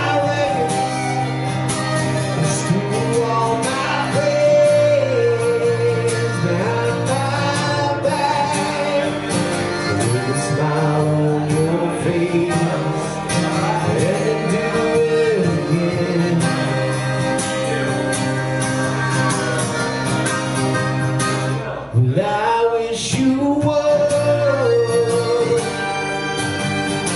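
Harmonica playing a melody with sliding notes over acoustic guitar accompaniment. The music drops away briefly about 22 seconds in, then comes back in.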